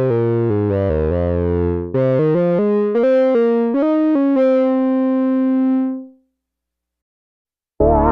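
Sequential Prophet-6 analog polyphonic synthesizer playing preset patches. A run of chords and stepping notes changes sound about two seconds in and ends in a held chord that fades out about six seconds in. After a short silence, a new, brighter patch with a wavering pitch starts near the end.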